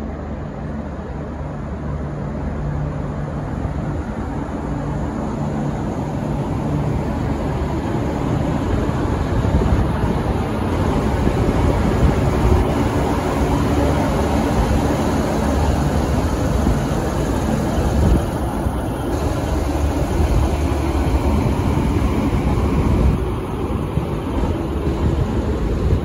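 V/Line VLocity diesel multiple unit pulling out and passing close by: its diesel engines and wheels on the rails, growing louder over the first ten seconds and then holding steady.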